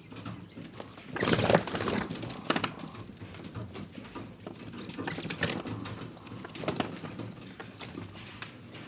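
Pigeons cooing, with scattered tapping and scuffling noises and a louder rush of noise about a second in.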